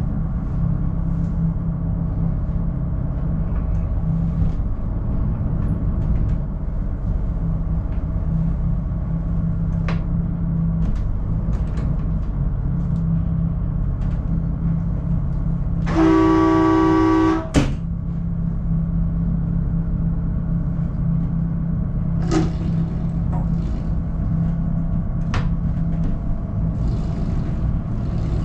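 Twin diesel engines of a twin-screw motor yacht running steadily at low speed while manoeuvring out of a dock. About two-thirds of the way through, a boat horn sounds one blast of about a second and a half. A few faint clicks are heard around the helm controls.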